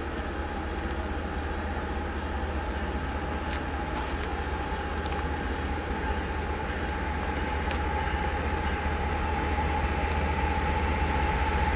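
Diesel train approaching, its low rumble growing steadily louder, with a steady high whine and a few faint clicks.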